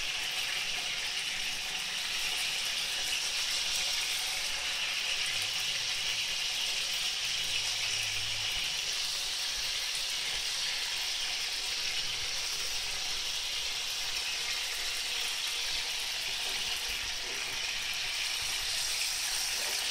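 Stuffed bell peppers sizzling steadily in hot oil in a frying pan while they are turned over with a fork.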